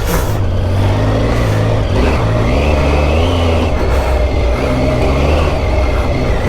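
Triumph Tiger 800's three-cylinder engine running under load through sand, its revs rising and falling, with wind noise over it.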